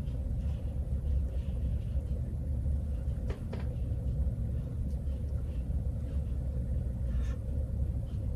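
Steady low rumble with a faint steady hum underneath, and a few faint ticks about three and a half seconds in and again near the end.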